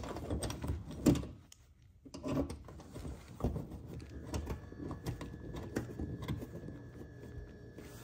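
A mud-flap mounting bracket and its screw hardware being handled and fitted against a felt wheel-well liner: irregular rubbing, scraping and small knocks, with one louder knock about a second in.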